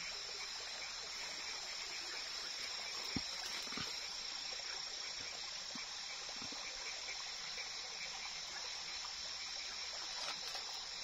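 Crickets chirring steadily at a high pitch over a soft background haze, with a couple of faint knocks a few seconds in.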